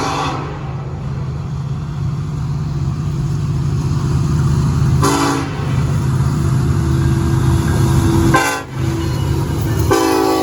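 Diesel locomotive running with a steady low drone, sounding its air horn in several blasts: one ending just after the start, a short blast about five seconds in, a brief one about eight and a half seconds in, and another starting near the end.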